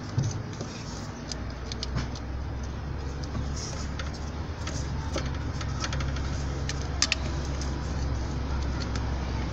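Scattered small clicks and plastic rattles from a hand working the distributor ignition module and its wiring connectors back into place in an engine bay, over a steady low rumble.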